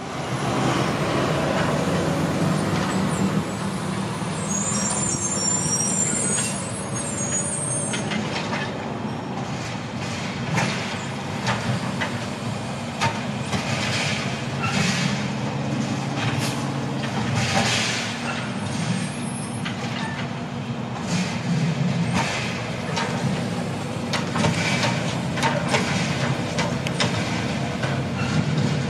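Automated side-loader garbage truck engine running steadily, with a high squeal of air brakes about five seconds in as it stops at the carts. Then a series of clanks and knocks as its arm lifts and tips wheeled polycarts into the hopper and sets them back down.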